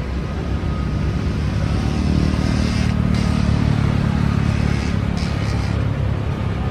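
Twin-engine jet airliner's engines running low and steady on short final, swelling a couple of seconds in as the plane flares toward touchdown.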